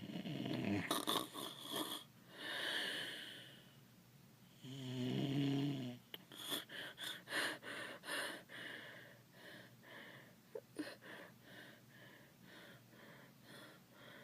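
Snoring sound effect: a few breathy snorts, a long hissing breath in, then a long pitched snore about five seconds in, followed by a run of short puffing breaths that grow fainter.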